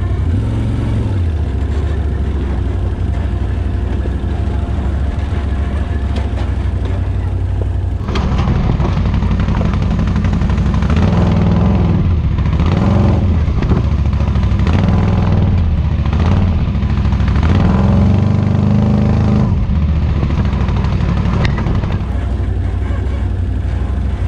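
ATV engine running at steady low revs, then from about eight seconds in revving up and down harder under load, with occasional knocks, before settling back to a steady low run near the end.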